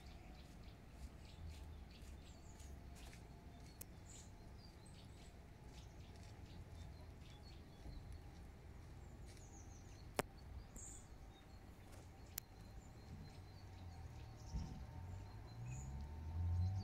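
Quiet lakeside ambience: a few faint, short bird chirps over a steady low rumble, with a single sharp click about ten seconds in. The low rumble grows louder near the end.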